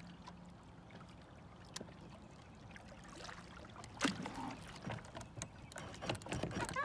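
Water lapping against a small fishing boat's hull, with a sharp knock on the boat about four seconds in and then several irregular clunks.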